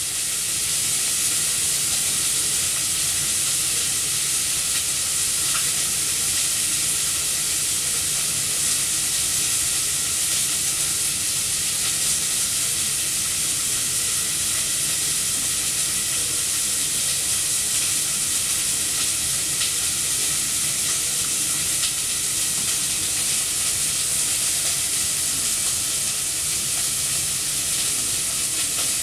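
Steady, even high hiss with no distinct events, typical of a camera microphone's own noise.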